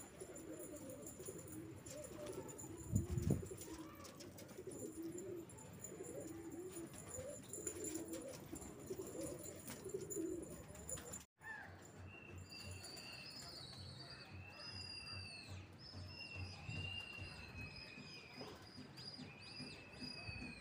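Domestic pigeons cooing in a flock. About three seconds in there is a low thump. After a short break near the middle, a series of high, drawn-out whistles follows, several of them sliding down at the end.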